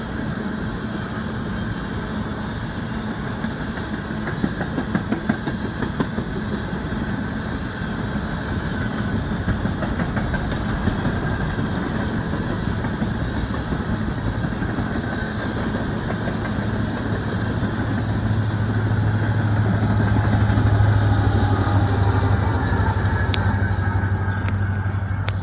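BNSF empty coal train rolling past, its empty cars rattling and its wheels clicking over rail joints, over a steady low diesel-locomotive drone. The drone swells about three-quarters of the way through, then eases off.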